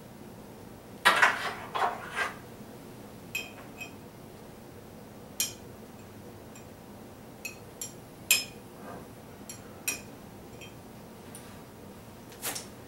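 A spoon clinking against a thick glass mug: a quick cluster of clatter about a second in, then scattered single taps, each with a short glassy ring.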